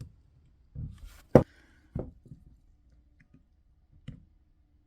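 A few sharp clicks and knocks of a screwdriver and small metal parts being handled while a vacuum wiper motor's top plate is unscrewed, the loudest about a second and a half in.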